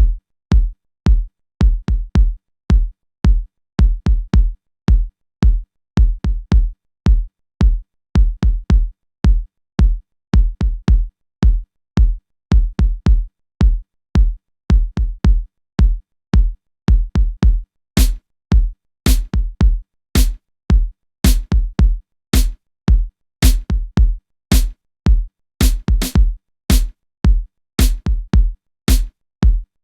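Electronic music: a drum-machine beat of short, heavy kick-drum hits, about two a second, with silence between them. Brighter, sharper hits join in about halfway through.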